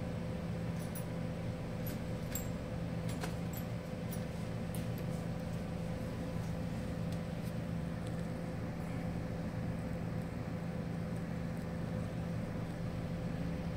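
Steady low machine hum in the room, with a few faint light clicks in the first few seconds as small tools are handled on the workbench.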